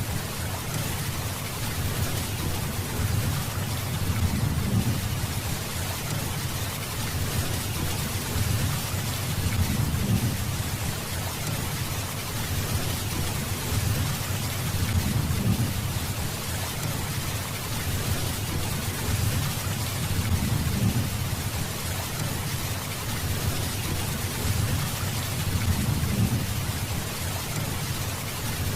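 Steady, heavy rainfall, a dense even hiss, with a low rumble underneath that swells and fades about every five seconds.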